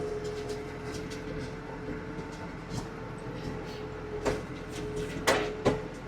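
Farm tractor running steadily while pulling a hay rake, with a held whine over the engine noise and a few sharp knocks or rattles in the last two seconds.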